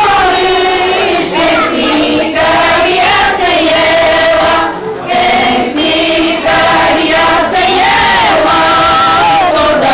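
A group of women singing a song together, loud and close, with a brief pause about five seconds in.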